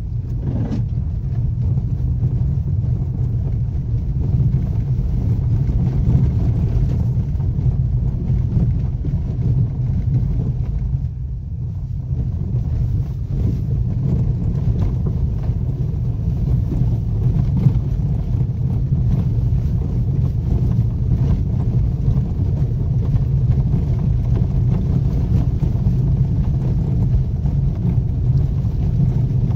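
Car driving slowly on a rough dirt track, heard from inside the cabin: a steady low rumble of engine and tyres that eases briefly about eleven seconds in.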